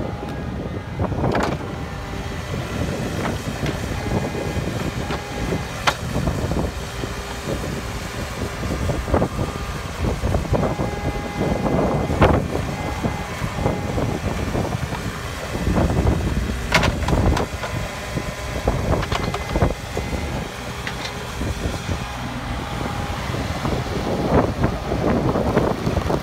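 Kubota U35 mini excavator's diesel engine running under load as the boom, arm and bucket are worked and the upper structure swings. A whine comes and goes over the engine, and there are sharp metallic clanks every few seconds, the loudest about twelve and seventeen seconds in.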